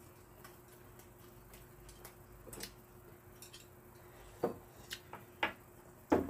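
Light clicks and taps of chopsticks and spoons against ceramic bowls during a meal, scattered and coming more often in the second half, with the loudest about six seconds in. A faint steady hum runs underneath.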